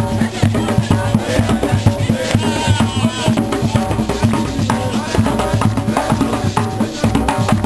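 A group of African hand drums played live together in a fast, dense rhythm.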